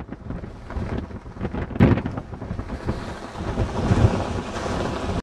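Strong mountain wind buffeting the camera microphone: a low rumbling rush, with gusts hitting hardest about two seconds in and again about four seconds in.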